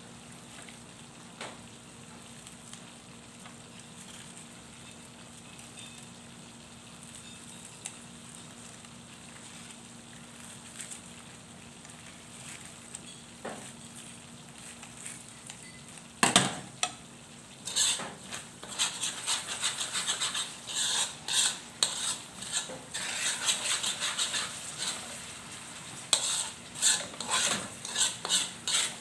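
Thick spicy red sauce simmering with a faint sizzle in a metal pan. About sixteen seconds in a utensil knocks against the pan, then it scrapes and clinks against the pan over and over as the sauce is stirred.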